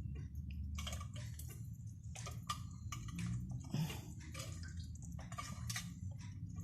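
Irregular light clicks, taps and wet dripping sounds as a marinated whole chicken is handled into a turbo broiler's bowl, over a steady low hum.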